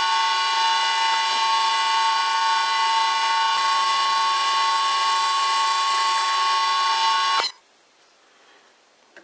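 Vintage metal lathe running, a loud steady whine from its drive while the tool turns down the outside of a nylon workpiece. The whine cuts off suddenly about two thirds of the way in.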